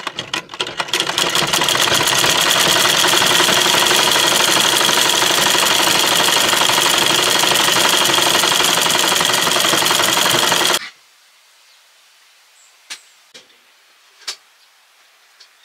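Old black mechanical sewing machine stitching at speed: it picks up pace over the first second or two, then runs as a steady, rapid clatter until it cuts off suddenly about eleven seconds in. A few faint clicks follow.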